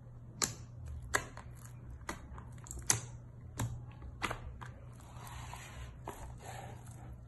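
Pink slime being pressed and poked with the fingers in a plastic tub, giving sharp wet clicking pops about once a second. About five seconds in, a longer soft squelching rustle follows as the tub is tipped and the slime slides out.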